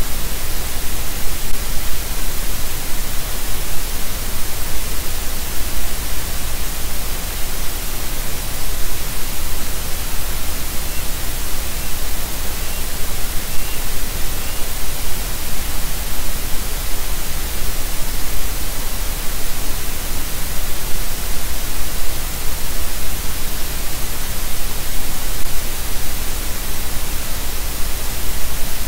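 Loud, steady hiss of static from a nest camera's live audio feed, with a few faint high chirps about halfway through.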